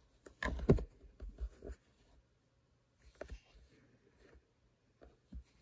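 Hard plastic coin slab being handled and turned in the fingers: scraping rubs and light knocks, loudest a little under a second in, with more around three seconds in.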